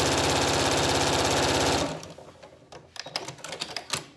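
Janome domestic sewing machine stitching bias tape onto fabric at a steady, rapid pace, stopping abruptly a little under halfway through as the seam is finished. Scattered sharp clicks and rustles follow as the presser-foot lever is worked and the fabric is handled.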